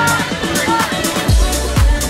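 Electronic dance music with a steady beat, house-style. The deep bass drops out and comes back in a little over a second in.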